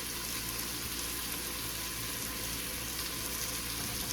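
Chicken and curry sauce sizzling steadily in a pan on the stove.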